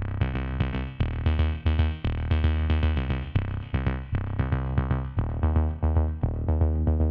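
Electronic music: a quick run of short pitched notes over a deep bass line, in a steady rhythm.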